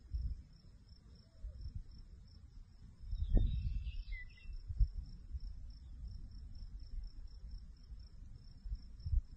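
Crickets chirping in a steady, evenly pulsing high-pitched trill, over gusts of wind rumbling on the microphone, the strongest about three and a half seconds in. A short chirping call comes just after that gust.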